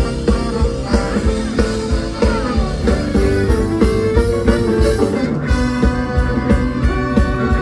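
A live band playing rock music with guitar over a steady drum beat. The music changes abruptly about five seconds in.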